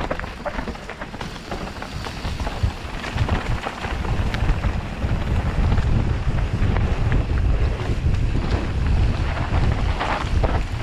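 Wind buffeting the camera microphone during a fast mountain-bike ride down a trail, with rattling and knocks from the bike over rough ground. The rumble grows louder about four seconds in.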